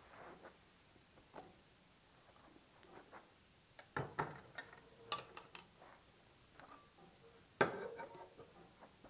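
Metal cookware clattering as a pan, bowl and spoon are handled and set on top of a kerosene heater: a run of light knocks and clinks, then one loud metal clank with a short ring as the pan comes down, about three-quarters of the way through.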